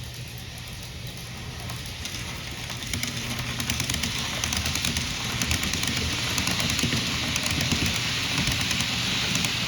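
N-gauge model train, a six-car HC85 express, running past on the layout: a dense, rattling clatter of small wheels on the model track over a low motor hum, growing louder about three seconds in as it comes close.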